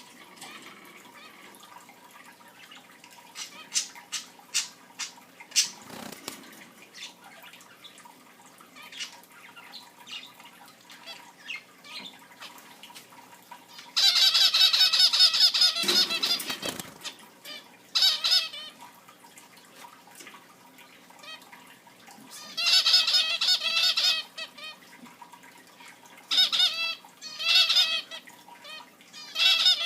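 Zebra finches calling: scattered short chirps at first, then from about halfway through, loud runs of rapid calls in bursts lasting a second or two.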